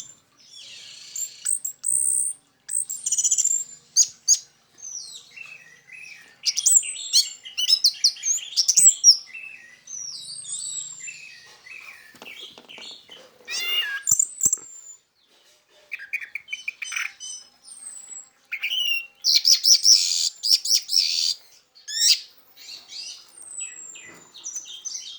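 Orange-headed thrush (anis merah) in full, energetic song: a rapid, varied run of high whistles, sweeping notes and chattering trills, phrase after phrase with short pauses between.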